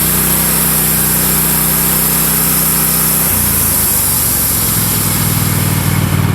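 Wood-Mizer LX150 band sawmill running steadily, its engine note over a high hiss from the blade. About three seconds in, the engine note changes, and the hiss fades near the end.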